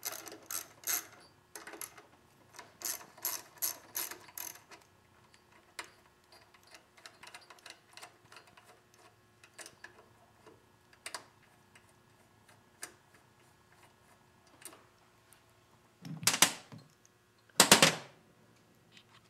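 Socket ratchet clicking in quick runs as the bolts holding a carburetor linkage plate are backed out, followed by scattered light ticks. Two louder knocks come near the end.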